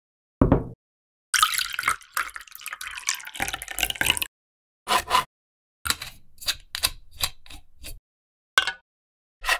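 A run of separate kitchenware Foley samples with dead silence between them: a short low thump, a couple of seconds of dense clattering made of many small hits, then a pair of hits, a quick even run of sharp taps at about five a second, and two single knocks near the end.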